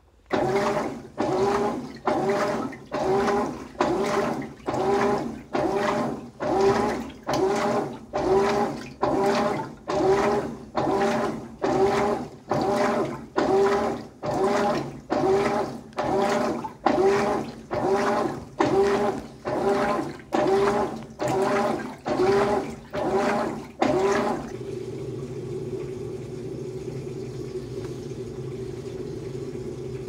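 GE GTW465ASN1WW top-load washer agitating towels in sudsy water: the wash plate reverses in quick, even strokes, each a motor whine that rises and falls with a swish of water, about three strokes every two seconds. Near the end the strokes stop and a steady motor hum takes over.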